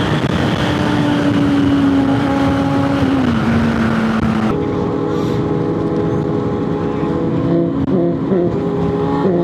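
Motorcycle engine running at cruising speed with wind rush. The engine note drops about three seconds in, the wind hiss cuts off suddenly a little later, and the engine then runs lower with a wavering pitch near the end.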